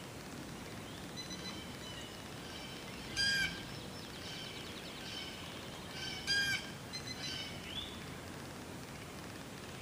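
Wild birds calling over a steady outdoor hiss: two short, loud, harsh calls about three and six seconds in, with fainter chirps and a brief trill between them.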